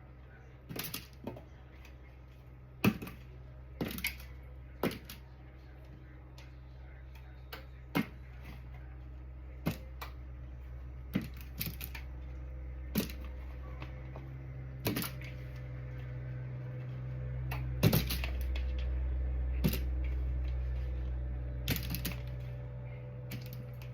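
Pieces of oil-coated potato dropped one at a time onto a parchment-lined baking sheet, making irregular light taps about once a second. A steady low hum underneath gets louder about two-thirds of the way through.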